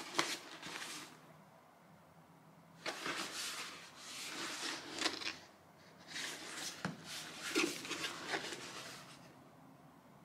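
Handling noises: three bursts of rustling and scraping with a few sharp clicks.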